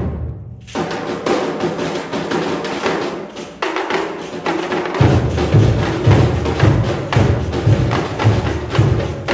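Percussion ensemble playing a samba-style groove on surdo bass drums, slung snare drums and tamborims. After a brief break at the start, the higher drums play on alone, and the deep surdo pulse comes back in about five seconds in.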